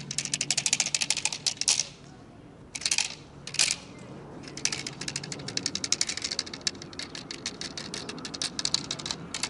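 Rapid, dry clicking rattle in runs of many clicks a second, with two short bursts in a pause about three seconds in.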